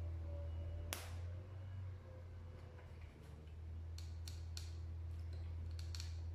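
Hot glue gun clicking as it is worked against a paper plate: one sharp click about a second in, then a few lighter clicks around four seconds and again near six seconds, over a steady low hum.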